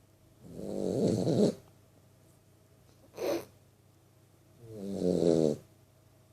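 Three-month-old vizsla puppy snoring in its sleep: two long snores about four seconds apart, with a short one between them.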